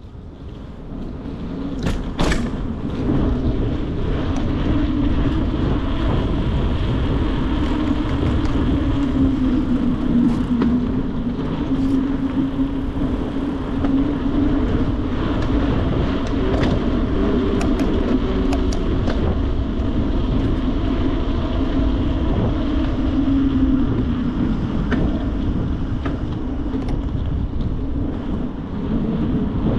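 Steady riding noise from a mountain bike on the road: a wavering hum and rush that builds over the first few seconds, with a sharp click about two seconds in and scattered small clicks and rattles.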